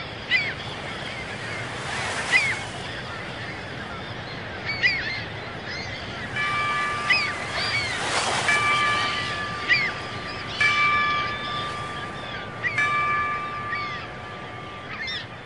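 Soundtrack of ocean waves washing steadily, with birds calling in short chirps every second or two. Soft held music tones come in about six seconds in.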